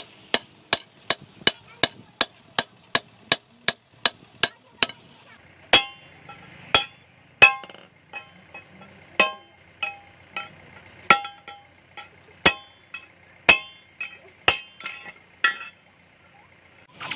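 Hand hammer striking the pipe-steel blade of a digger hoe on a post anvil. First comes a run of quick, even blows, about three a second, then slower, louder blows that ring, about one a second with a few in quick pairs, stopping shortly before the end.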